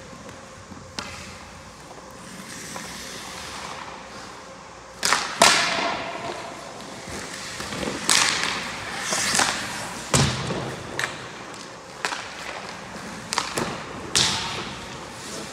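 Hockey skate blades scraping and carving on ice, with sharp knocks of a puck and stick during a shooting drill; the loudest burst comes about five seconds in.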